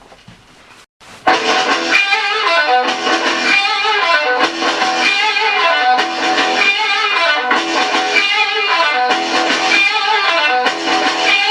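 A guitar-led 45 rpm record playing through a restored Westminster suitcase record player's single-valve amplifier and speaker. The music starts abruptly about a second in after a brief faint hiss.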